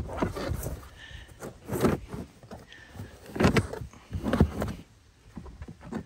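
Stiff TPU all-weather floor liner being slid and pushed into a truck's footwell: irregular scuffs, scrapes and knocks against carpet and seat trim, with a couple of short squeaks.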